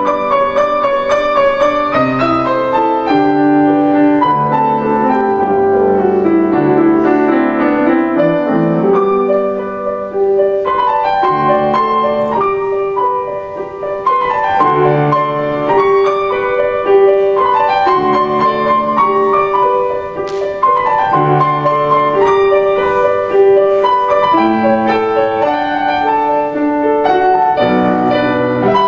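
Piano duet, four hands on one Yamaha grand piano, playing continuously.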